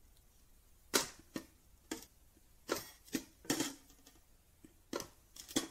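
Cheap handheld spot welder's pen electrodes firing on 0.4 mm metal strip: about eight short, sharp snaps at irregular intervals, each a weld pulse.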